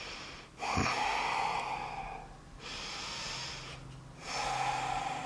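A woman breathing slowly and deeply: two long, audible breaths with a quieter pause between them, taken while holding a yoga squat.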